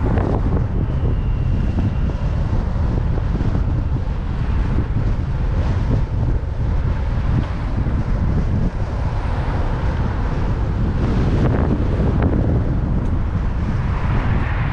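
Strong wind buffeting the microphone of a camera on a moving bicycle: a loud, steady low rumble throughout.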